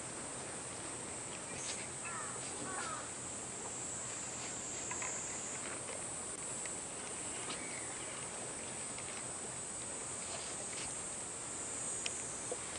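Steady high-pitched insect buzz, with a few short bird chirps about two seconds in and scattered faint clicks.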